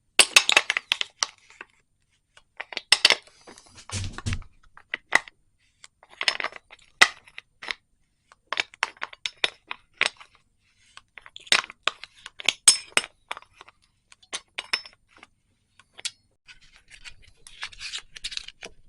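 A large wrench clinking and tapping on the metal retaining nut of a Shad SH37 top box's lock cylinder as the nut is worked loose: scattered separate clicks and clinks, with a dull knock about four seconds in.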